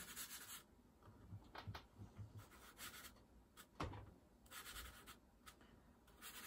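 Faint scratching of a chalk pastel stick stroked across paper, in a few short spells of strokes, with one light tap a little past the middle.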